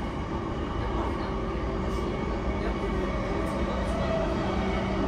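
Running sound inside a JR East E233-1000 series electric train car: a steady rumble of wheels on rail, with steady tones from the Mitsubishi IGBT-VVVF inverter and traction motors.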